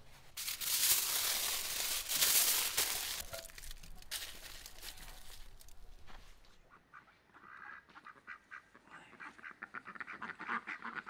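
A loud rustling, crinkling noise for about six seconds. Then, after a cut, domestic ducks quacking in quick repeated calls to the end.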